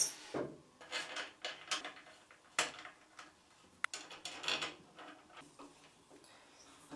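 Wooden workpieces and hardware being handled and fitted together: a string of irregular knocks, clatters and scrapes.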